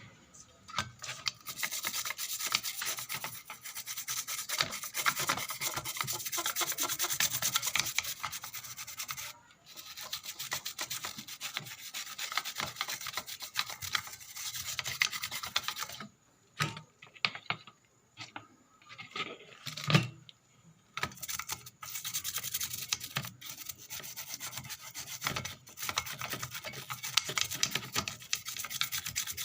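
Rapid scrubbing on the circuit board of a water-damaged amplifier as it is cleaned, fast back-and-forth scraping strokes with a few short pauses.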